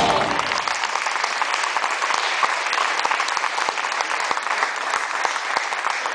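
Concert audience applauding, a dense steady clapping that sets in as the band's final chord dies away in the first half-second.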